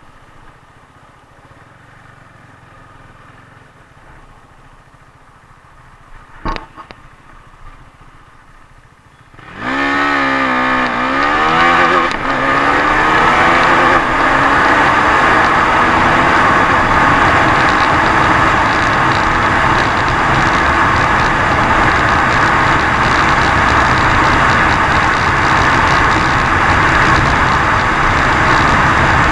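2018 KTM 390 Duke's single-cylinder engine idling quietly, with one short knock partway through. About nine and a half seconds in it opens up into a hard full-throttle launch, its pitch rising and breaking at the upshifts. It then settles into a loud, steady drone of engine and wind as the bike pulls toward 150 km/h.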